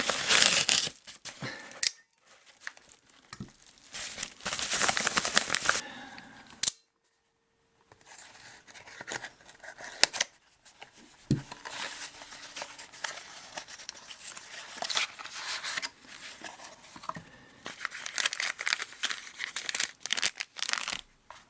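A parcel's packaging being torn open and rustled by hand, in uneven bursts of tearing and crinkling with a few sharp clicks.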